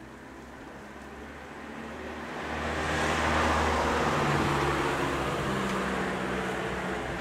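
A road vehicle driving past: its tyre and engine noise swells to a peak a few seconds in, then fades away, over a steady low engine hum.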